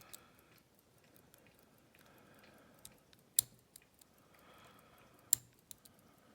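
Lock pick working the pins inside a Scandinavian oval cylinder lock: faint metal scraping with scattered small clicks and two sharp louder clicks, about three and a half and five seconds in.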